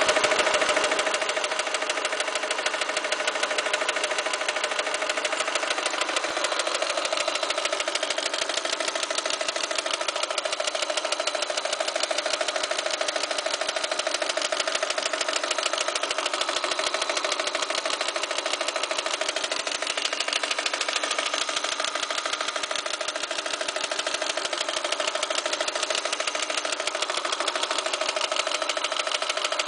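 Opel Astra G's 1.6-litre Z16XE four-cylinder petrol engine running at a steady speed with a rapid, even knocking from inside the engine.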